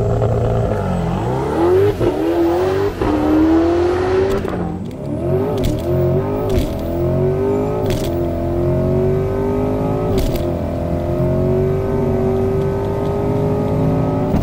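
Twin-turbo C8 Corvette's LT2 V8 pulling hard down the drag strip. The engine note is held steady at first, then climbs and drops back at each of several upshifts, with a few sharp cracks.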